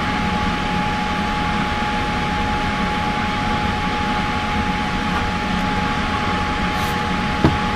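Laminar flow hood blower running with a steady whoosh and a faint steady whine. Near the end there is a brief hiss and a light knock.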